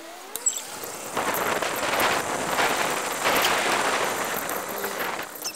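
Wind rushing over the microphone of a bicycle-mounted action camera while riding, mixed with road and traffic noise. It swells in uneven surges and gets louder about a second in.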